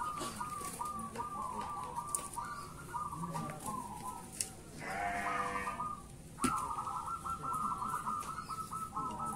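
Many caged zebra doves (perkutut) cooing at once, their repeated short coos overlapping without a break. About halfway through, another animal gives a single call lasting about a second, followed by a sharp click.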